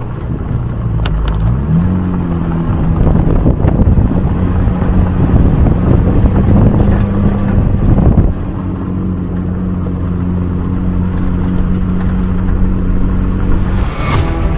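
Off-road vehicle's engine driving on a rocky dirt trail. Its pitch rises about two seconds in and then holds steady, and it eases off somewhat about eight seconds in. Rough tyre noise and a few sharp knocks are heard from the trail.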